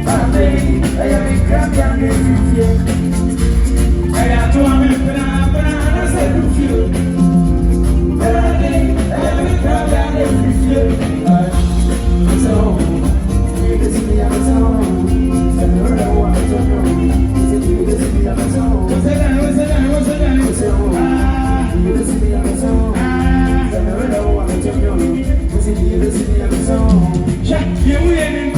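Live band playing over a steady, heavy bass, with phrases of singing that come and go.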